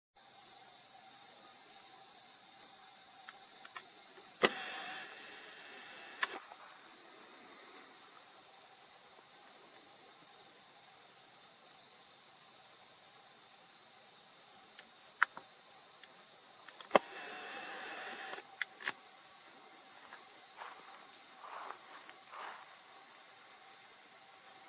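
A steady, high-pitched insect chorus, a dense unbroken trill, with a few sharp clicks standing out above it, one about four seconds in and two more later.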